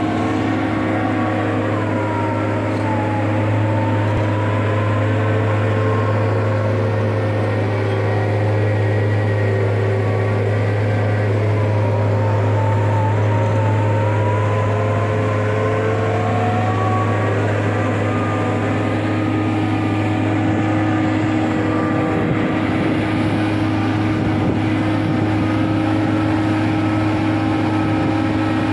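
Heavy diesel construction machinery running steadily: a tracked piling rig drilling a continuous flight auger pile, with a backhoe loader working beside it. A loud, even low drone with a few higher whines that waver in pitch.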